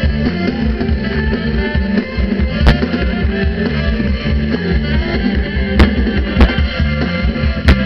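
Live band playing an upbeat song with a steady drum beat and bass, loud and heard from the middle of the crowd, with a few sharp handclaps close to the microphone.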